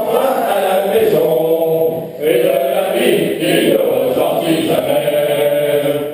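Many voices chanting together in unison, drawn-out sung phrases that break off briefly about two seconds in.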